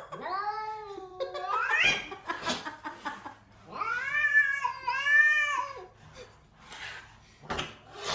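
Cat yowling: a drawn-out call that slides up in pitch, then a run of several long, arching yowls.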